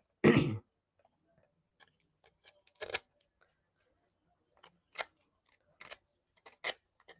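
Sandpaper scraping in short, irregular strokes along the charred paper edges of a decoupaged wooden cutout, knocking off burnt paper. A handful of brief crisp scratches, the loudest just after the start.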